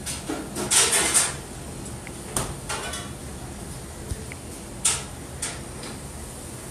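Dishes and utensils clattering in a restaurant: a few short clatters and scrapes over a steady room hum, the busiest cluster about a second in.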